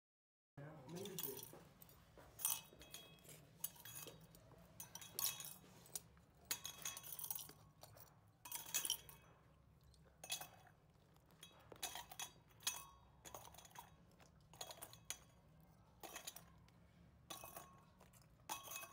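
Light metal clinks and taps of oil-filter parts being handled: end caps and filter cartridges knocking against the metal filter housings, irregular and faint, coming in quick clusters now and then.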